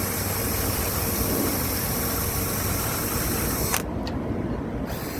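Steady hum and whir of rooftop HVAC equipment running, with a thin high whine over it. A click comes near the end, after which the high whine stops for about a second.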